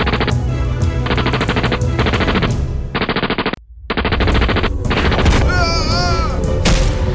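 Automatic gunfire in repeated rapid bursts with short gaps and a sudden brief dropout about halfway, over a background music score. A short wavering cry sounds a little after five seconds in.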